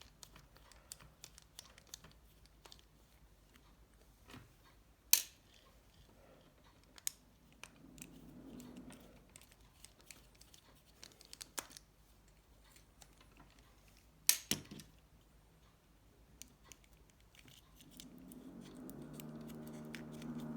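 Small clicks and taps of a precision screwdriver and plastic mobile-phone parts being handled as screws are taken out, with two sharper knocks. A steady low hum comes in near the end.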